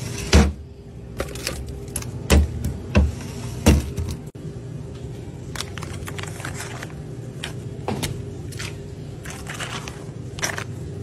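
Plastic cups of ice and plastic drink pouches being handled and taken off store shelves. There are four dull knocks in the first four seconds, then lighter clicks and crinkles, over a steady low drone.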